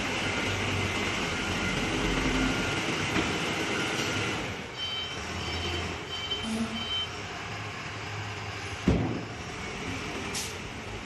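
Self-loading concrete mixer truck running, with steady heavy machine noise that eases about four and a half seconds in. Short high reversing beeps then sound about twice a second, and a single thump comes near the end.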